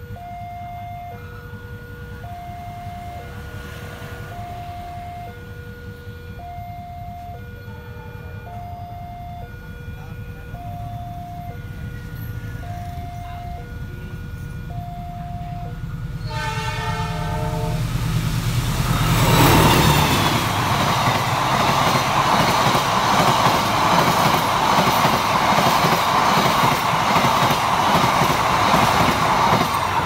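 Level-crossing warning alarm repeating a steady high-then-low two-note chime over a low rumble. About 16 seconds in a train horn sounds, then a train passes loudly over the crossing, its noise peaking about 20 seconds in and holding to the end.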